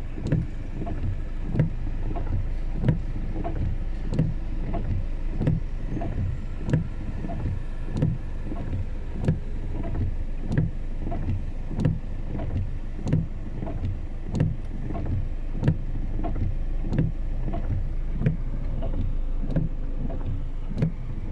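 Windscreen wipers sweeping in the rain, a regular thump about every 1.3 seconds, over the steady low rumble and hiss of a vehicle cabin on a wet road.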